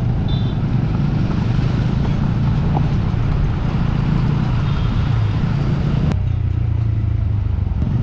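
TVS Apache RTR 200 4V's single-cylinder engine running under way, with wind and tyre noise over a rough gravel road. About six seconds in the sound changes suddenly to a steadier, lower engine note with much less wind noise.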